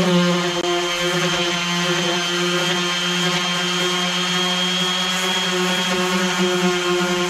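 Electric power sander running steadily on the boat's fiberglass hull, with a constant motor whine.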